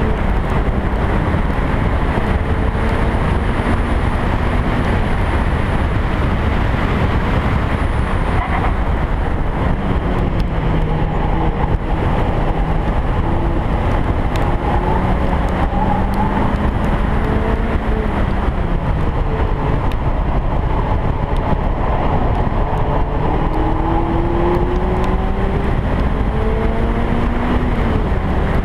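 Car engine running hard around a race circuit. Its note rises and falls several times with throttle and gear changes. Heavy wind rush is on the outside-mounted camera.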